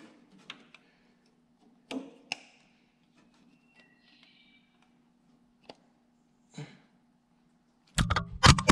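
A few small, isolated metal clicks and taps as hands and pliers snug a wire connection on the Ford 8N tractor's distributor and coil. Near the end comes a loud burst of knocks and clatter as the camera is bumped by an elbow and falls.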